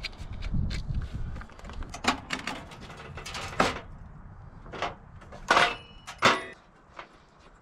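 Metal knocks and clanks of a Coleman two-burner camp stove being set on a folding aluminium slat-top table and its lid and grate handled: several separate sharp knocks, the loudest two about five and a half and six seconds in, one with a brief metallic ring. A low rumble at the start.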